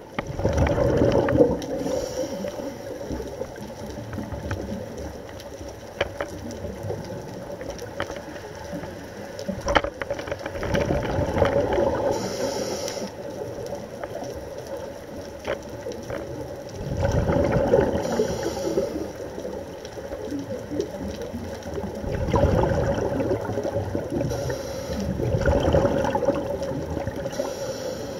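A scuba diver breathing through a regulator underwater: bursts of exhaled bubbles rumbling every five or six seconds, with a short hiss of inhalation between them. Scattered sharp clicks and a steady hum lie underneath.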